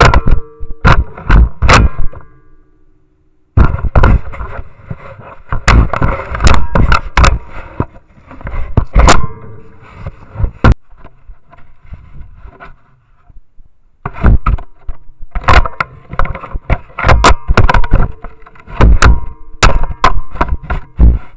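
Loud knocks, scrapes and thumps as a black bear bats and paws at a trail camera, the camera housing jolted about right against its microphone. The blows come in dense bursts, with brief lulls about two seconds in and about twelve seconds in.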